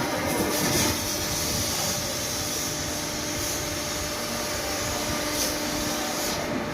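CNC laser cutting machine running while cutting 3 mm mild steel plate: a steady hiss with a low steady hum under it, dropping slightly in level about a second in.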